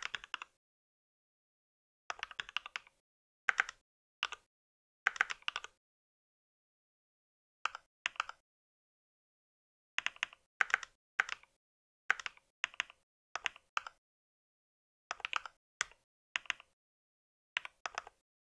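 Mechanical keyboard being typed on in short bursts of key clicks, with dead silence between the bursts.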